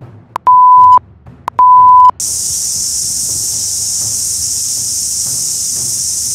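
Two loud electronic beeps at one steady pitch, each about half a second long and about a second apart, with the background cut out around them. A steady high hiss follows.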